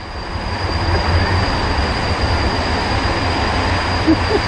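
Rapids-ride boat moving along the ride: a steady low rumble with a rushing noise over it.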